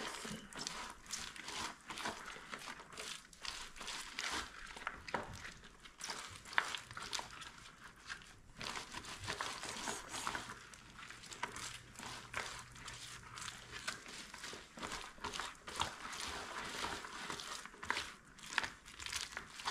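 Rubber-gloved hands rubbing thick red pepper kimchi seasoning between the leaves of salted napa cabbage in a plastic basin: irregular rustling and crinkling throughout.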